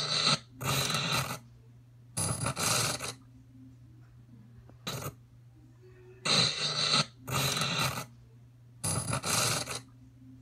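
Digital glitch sound effect: short bursts of harsh static noise, each under a second, coming in pairs and singles about every one to two seconds, over a steady low hum.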